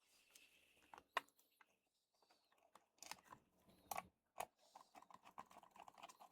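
Faint clicks and knocks of a plastic headset earcup being handled during reassembly. From about five seconds in comes a quick, even run of small ticks as a small screw is driven up with a screwdriver.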